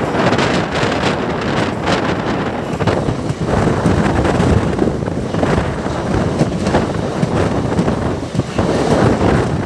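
Circar Express passenger train running at speed, heard from an open window: a steady loud rush of running noise with wind buffeting the microphone.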